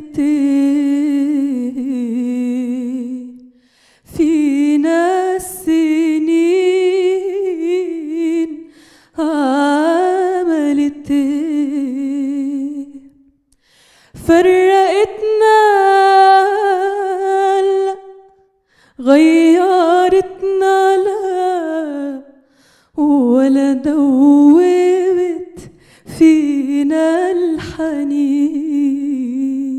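A woman singing an Egyptian Arabic love song unaccompanied into a handheld microphone. About seven long phrases of held, wavering notes, each a few seconds long, broken by short pauses for breath.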